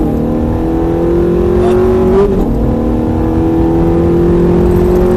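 Ferrari F430's V8 engine pulling hard under acceleration, heard from inside the cabin. Its pitch drops at an upshift right at the start and again about two seconds in, climbing steadily after each.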